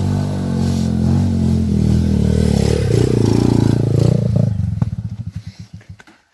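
Honda Megapro single-cylinder four-stroke engine in a home-built KLX-style trail bike, running and revving up briefly about three seconds in. It then slows and dies away, its firing beats spreading further apart until it stops near the end, as if switched off.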